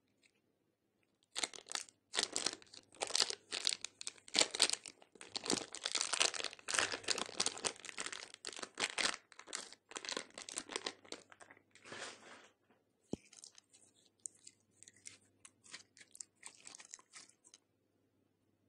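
Clear plastic piping bag crinkling and tearing as hands peel it off a lump of red slime, with the slime crackling and squishing between the fingers. Dense crackling starts about a second and a half in and thins out to sparser, quieter crackles after about twelve seconds.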